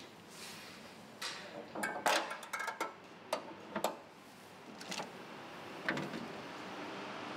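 Irregular clicks and knocks from handling a car boot: the lid being opened and a charging cable's plug being fitted. The clicks come in a cluster about two seconds in, then a few single ones further apart.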